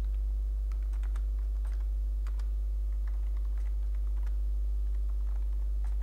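Typing on a computer keyboard: irregular key clicks, some in quick clusters, over a steady low hum.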